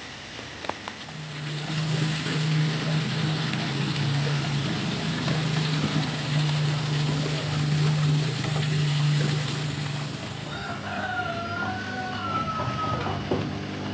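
An engine runs steadily with a low hum for most of the time, then a rooster crows once, a wavering call of two or three seconds, near the end.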